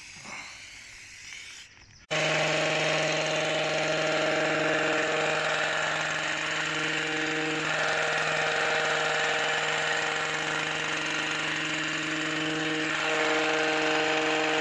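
A faint hiss of aerosol lubricant being sprayed onto a hedge trimmer blade. About two seconds in, the trimmer's motor starts suddenly and runs steadily at an even pitch while trimming box hedging.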